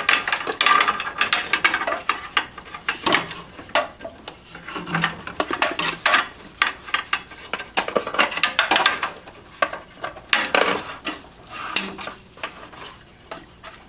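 A SATA cable and its connectors being worked through the inside of a metal desktop computer case: irregular clicks, light clatter and scraping of plastic and wire against the sheet-metal chassis.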